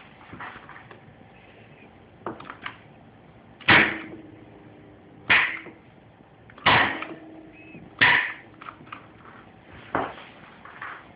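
Magnetic contactors of a reversing starter clacking as the push buttons are worked: four loud clacks, about a second and a half apart. A steady hum runs while a contactor is pulled in, and lighter button clicks come before and after.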